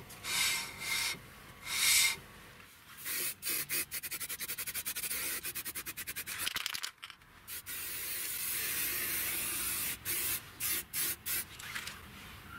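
Aerosol spray-paint can: a few short bursts of spray, then a fast, even rattle of about seven clicks a second as the can is shaken with its mixing ball, a longer steady spray about halfway through, and several short spray bursts near the end.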